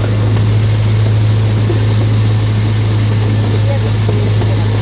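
Miniature park train on the move: a steady low engine drone from the small locomotive with a noisy running rumble over it.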